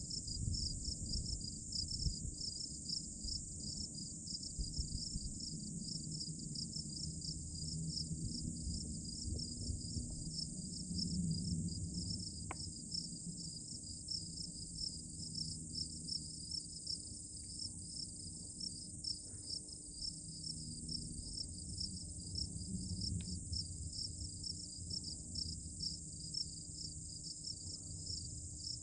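Steady chorus of insects trilling high-pitched in rapid, even pulses, over a low rumble, with a couple of faint ticks.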